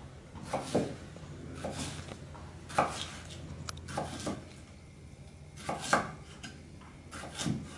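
Knife finely slicing a pear, about eight short, sharp cuts at uneven spacing.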